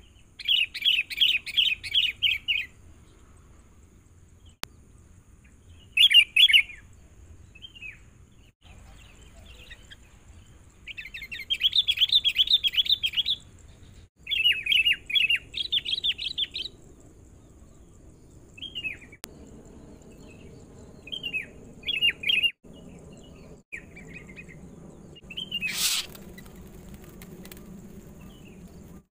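Sooty-headed bulbuls calling: several loud bursts of rapid chattering, with shorter separate calls in the later part, as a wild rival bulbul closes in on a tethered decoy bulbul. One sharp click comes near the end.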